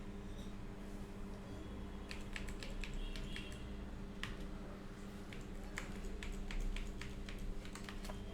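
Computer keyboard typing: short runs of keystroke clicks about two seconds in and again from about six seconds, over a steady low electrical hum.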